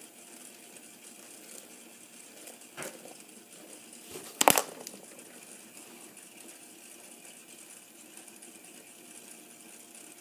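Low room hiss broken by a light tap about three seconds in and a sharp double knock a second and a half later.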